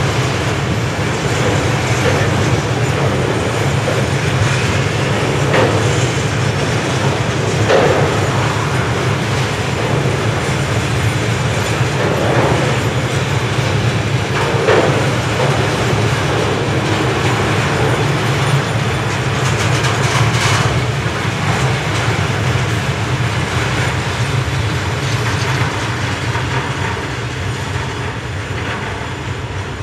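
Freight train of flat wagons loaded with steel coils rolling past, the wheels and wagons making a steady low rumble. It fades over the last few seconds as the end of the train pulls away.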